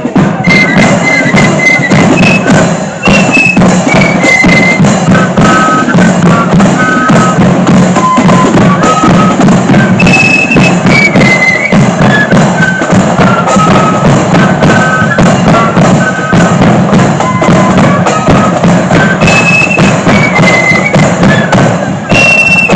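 Marching flute band playing a tune: high flutes carry a stepping melody over a steady, dense beat of drums.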